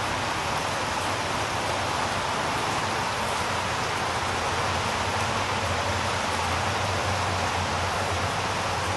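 Steady rain falling on a concrete pavement, an even hiss with no let-up.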